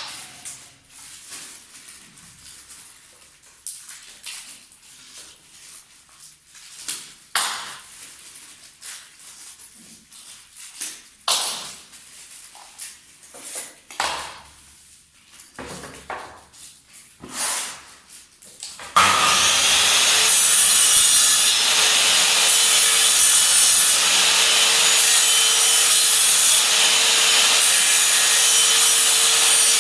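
Scattered short knocks and rustles, then, about two-thirds of the way in, a mitre saw comes on suddenly and runs loud and steady with a constant hum.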